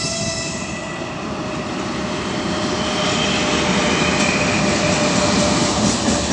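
A 3ES5K "Ermak" electric locomotive hauling a heavy freight train approaches at slow speed. Its running noise grows steadily louder, with a steady high tone underneath. Rhythmic wheel clatter begins near the end.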